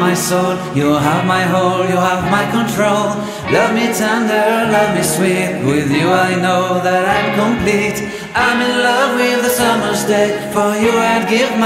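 Background music with singing.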